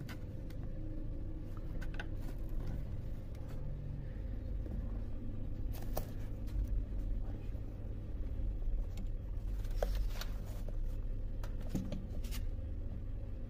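Handling noise as a shot bell pepper is held and turned by hand: a steady low rumble with a few scattered clicks and rustles.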